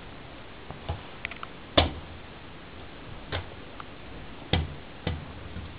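Kittens playing right at the camera, making a handful of irregular light knocks and taps, the loudest about two seconds in, over a faint steady hiss.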